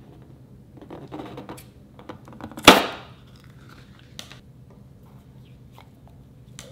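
Close-up hand handling of rubber balloons over a glass bowl: soft rustling, then one loud sharp crack about two and a half seconds in that rings out briefly, followed by a few light taps and clicks.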